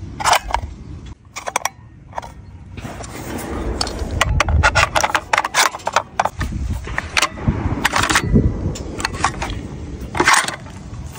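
Quick, irregular metallic clicks and clinks of .338 Lapua Magnum brass cartridges and rifle parts being handled, over a low rumble on the microphone.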